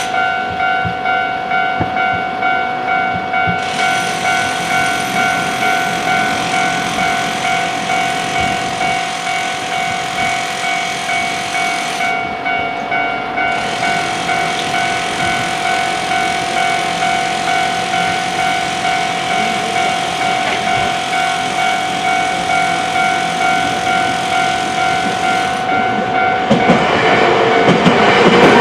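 Japanese railway level-crossing alarm bell ringing in a steady, even rhythm of repeated electronic dings. Near the end a Nankai Main Line train comes through, and its wheels and running noise swell up under the bell.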